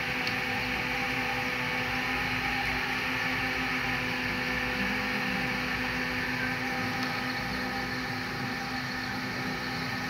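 3018 desktop CNC laser engraver running while it engraves: a steady whir with a few steady hum tones, from the laser module's cooling fan and the stepper motors driving the head.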